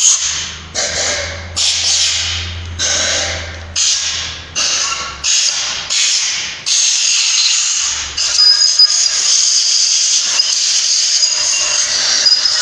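Compressed-air blow gun hissing in short blasts, roughly one a second, then a continuous blast from about seven seconds in with a thin high whistle in it. A low hum runs under the early blasts.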